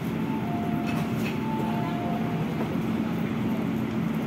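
Steady low rumble and hum of an underground metro platform, with train running noise from the tunnel.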